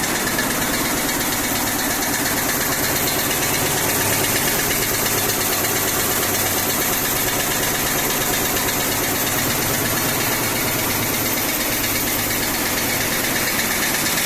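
Computerized quilting embroidery machine running steadily, a dense fast mechanical stitching noise that holds even throughout.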